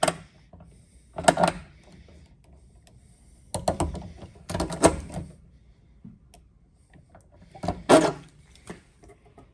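Lazy-tong pop rivet gun setting a rivet through a vehicle's body panel: metallic clicks and clanks from the scissor linkage as it is squeezed, in about five separate bursts.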